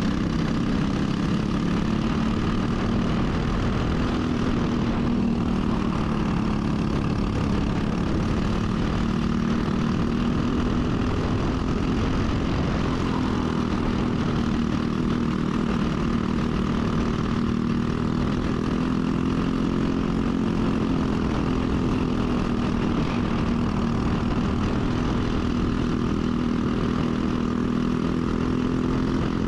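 Briggs & Stratton single-cylinder four-stroke kart engine running steadily, its pitch rising and falling only slightly.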